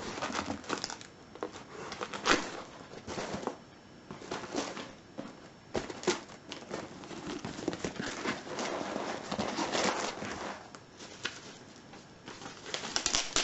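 Parcel packaging being unwrapped by hand: irregular crinkling and rustling, with some tearing, in bursts.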